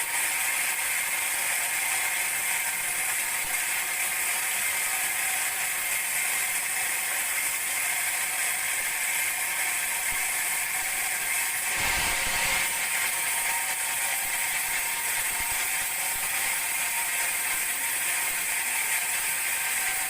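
Sawmill band saw running steadily through a teak log, a constant high-pitched sawing noise, with a brief low knock about twelve seconds in.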